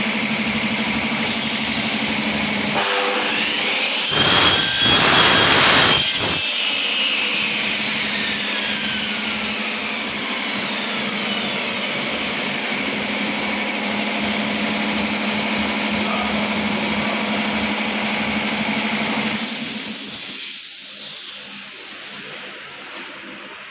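Workshop machinery running with a steady hum, and about four seconds in an electric mitre saw cuts through a white uPVC window profile: a loud cutting burst of about two seconds, then the saw's whine falling away as the blade spins down. Near the end a hiss rises briefly before the machine noise drops.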